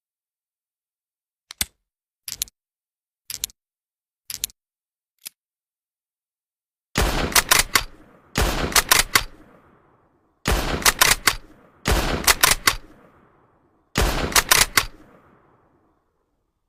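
Krag rifle sound effect: five short, sharp clicks of the rifle's action, then five loud bursts of gunfire, each a quick run of several shots with a trailing echo.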